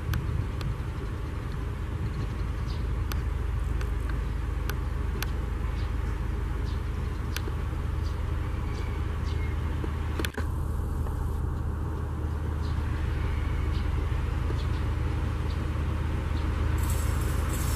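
Diesel engine of a rail track tamping machine running steadily with a low hum as the machine travels slowly along the track, with scattered sharp clicks. Near the end its wheels begin to squeal on the rails.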